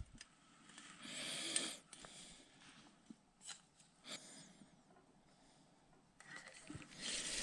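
A caught crappie being handled into a fish basket: a short noisy rush about a second in and a few light knocks, then a steady trickle of water starting near the end.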